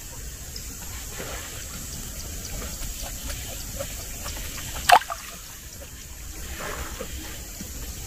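River water lapping and trickling against a wooden boat, with faint scattered ticks. One short sharp sound about five seconds in.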